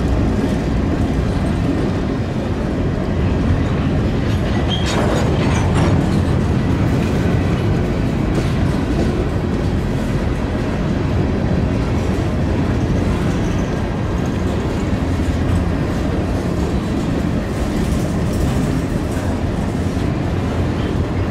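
Freight train of covered grain hopper cars rolling past close by: a steady rumble with the clatter of steel wheels over the rails.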